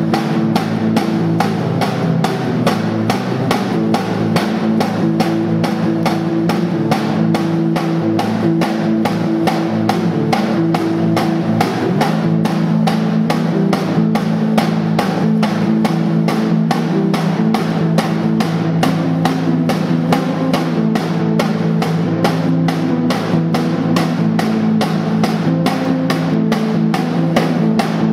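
Live music: a snare drum struck in a steady, even beat of about three hits a second over a sustained, droning amplified guitar.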